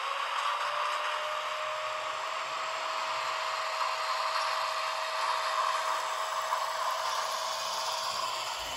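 ESU sound decoder in a Märklin H0 Krokodil Ce 6/8 model electric locomotive playing its driving sound while the model runs along the track: a steady electric whine over a rushing noise of motor and rolling wheels.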